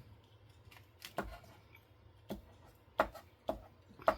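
A few sharp, irregular clicks and taps of paper craft pieces and a glue stick being handled on a work surface, about six in all, spaced roughly half a second to a second apart.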